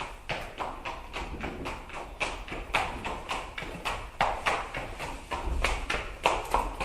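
Hoofbeats of a running horse: a quick, steady run of clip-clop strikes, several each second.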